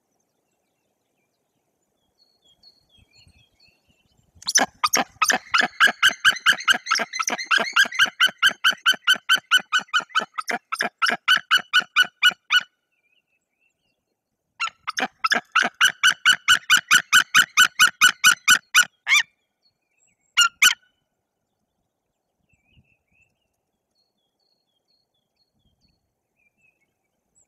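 White-tailed eagle calling: two long series of loud, rapid, evenly repeated notes, about four a second, with a short burst after. This is a nesting eagle's call in defence of its clutch against an intruding adult eagle.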